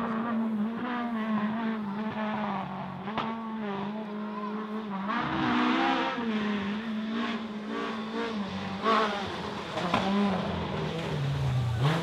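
Rally car engine, a Ford Escort, driven hard along the stage. Its note holds steady at first, then drops and climbs again several times as it shifts gear, growing louder as the car approaches.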